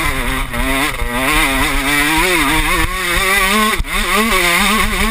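KTM SX125 motocross bike's two-stroke single-cylinder engine revving hard under load, its pitch rising and falling with the throttle, with a brief drop in engine note about four seconds in.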